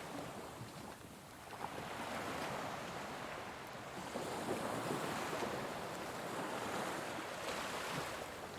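Ocean waves washing onto a shore, a steady surf hiss that swells gently and eases.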